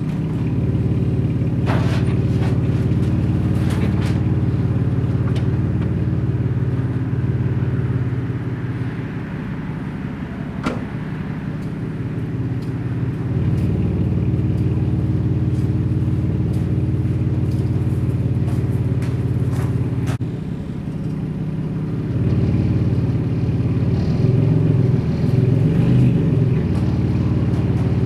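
Pickup truck engine running steadily at low revs, its level dipping and rising a few times, with a few sharp knocks over the top.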